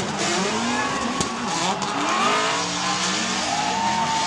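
Drift car engines revving, their pitch rising and falling, over tyres squealing and sliding. A single sharp crack comes about a second in.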